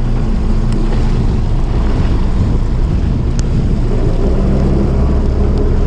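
Fishing boat's engine humming steadily under wind buffeting the microphone and rough swell washing against the hull, with a couple of faint clicks.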